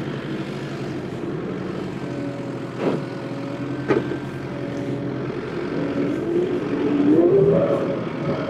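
Skid steer loader engine running steadily, revving up near the end, with two sharp knocks about three and four seconds in.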